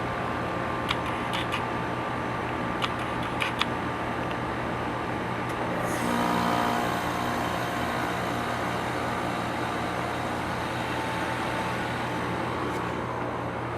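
2001 Trane XE1000 heat pump outdoor unit running in a defrost cycle, with a steady low hum and a few small clicks. About six seconds in, a sudden rush of noise sets in and the unit runs a little louder with new tones.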